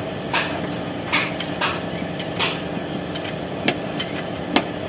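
Irregular sharp metallic knocks and clinks of hand tools, about seven in a few seconds, as a replacement starter motor is bolted into place, over a steady background hum.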